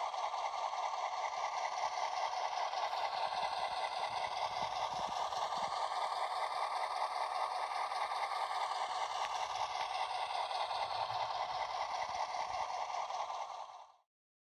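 Sound-equipped HO scale GP8 model diesel locomotive running, its small onboard speaker playing a steady diesel engine sound with a fast, even pulse, thin and mid-pitched. The sound fades out about a second before the end.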